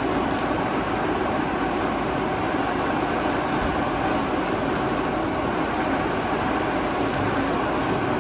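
Electric blower fans of two inflatable tube men running steadily, a constant rush of air driving the flailing tubes.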